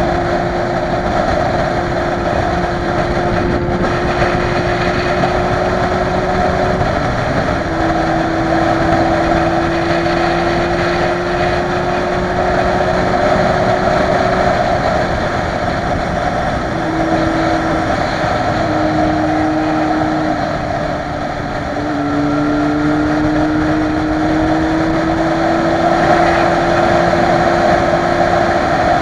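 Motorcycle engine running under way, its tone climbing slowly and then breaking at gear changes about seven seconds in and again around fifteen to twenty seconds, easing off briefly near twenty-one seconds before pulling up again. Wind rushes over the microphone throughout.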